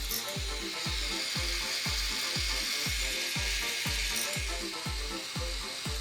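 Background electronic music with a steady fast kick drum, about three beats a second. Under it is a continuous mechanical whirring and clatter from a running K'nex roller coaster.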